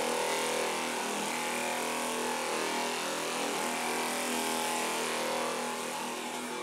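Pneumatic straight-line sander running steadily, its air motor humming over the hiss of sandpaper rubbing across body filler on a steel fender to knock the filler down.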